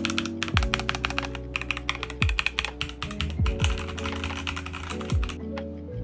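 Fast typing on an Epomaker EK68 mechanical keyboard: a dense run of key clacks that stops about five seconds in, over background music with a deep, falling bass beat.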